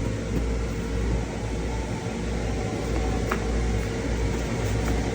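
Steady low hum and whir of a running fan-type machine with a faint steady tone in it. Two light clicks come through, a little past halfway and again near the end.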